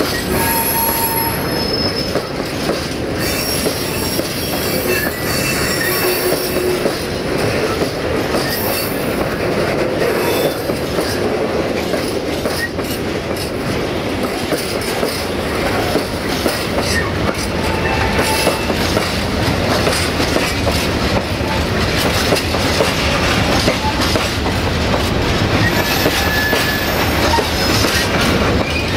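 Freight train of open box wagons rolling past close by: a steady rumble of steel wheels on rail, with clicks over the rail joints and points and brief wheel squeals.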